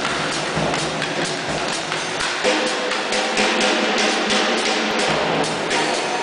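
Drum kit played with sticks, a busy run of hits on drums and cymbals, over the steady whoosh of a canister vacuum cleaner running.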